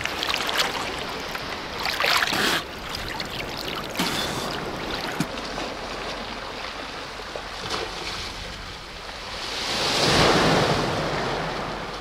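Small sea waves washing onto a pebble beach, with water sloshing close by in the first couple of seconds and one wave swelling and washing in loudest about ten seconds in.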